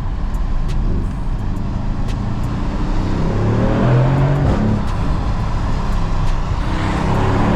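Mercedes-AMG GLC 63 S's twin-turbo V8 accelerating hard, its note rising, dipping briefly about four and a half seconds in, then climbing again near the end.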